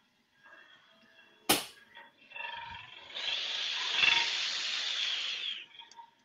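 Skew chisel shaving a spinning wooden spindle on a wood lathe: a steady scraping cut lasting about two and a half seconds in the second half, stopping abruptly. A single sharp knock about a second and a half in.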